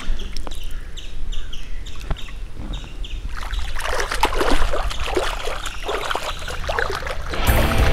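Bare feet kicking and splashing in pond water: a dense run of splashes begins about three seconds in and lasts about four seconds. Before it, small drips and splashes of water with repeated short high chirps.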